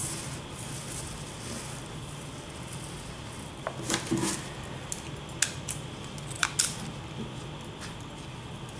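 A handful of short sharp snips and clicks from scissors being picked up and cutting through a bundle of folded yarn, starting about four seconds in, over a low steady hum.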